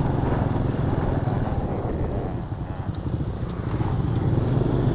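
Honda Astrea Star underbone motorcycle's small four-stroke single-cylinder engine running while riding; it eases off about halfway through and then picks up again.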